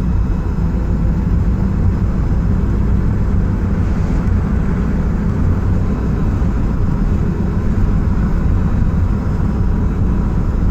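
Steady low rumble of a van's engine and tyres on the road, heard from inside the cab while driving.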